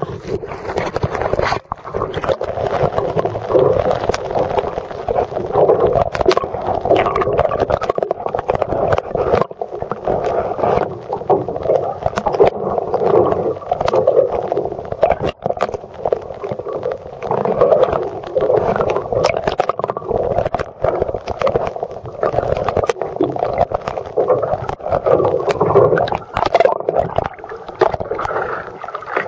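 Muffled underwater sound picked up by a camera held below the surface: a steady gurgling rush of water with many scattered clicks and knocks.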